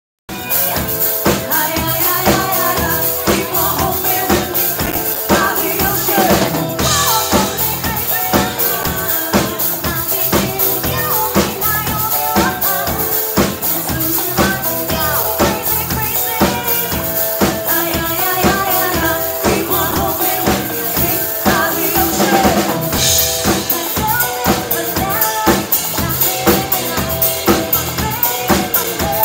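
Live band playing amplified music: a drum kit keeping a steady beat of kick and snare under electric guitar and bass guitar, with two cymbal crashes along the way. The sound cuts in abruptly just after the start.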